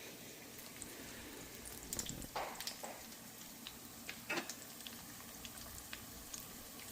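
Turon, banana and jackfruit spring rolls, frying in hot oil: a faint steady sizzle with a few small crackles about two and four seconds in.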